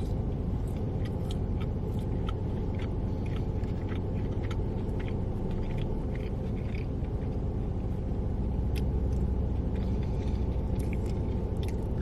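Chewing and biting on fried cheese bites, faint soft crunches and clicks every so often, over a steady low rumble.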